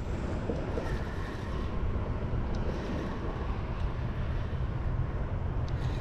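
Steady low wind rumble on the microphone while a spinning reel is cranked to reel in a hooked fish.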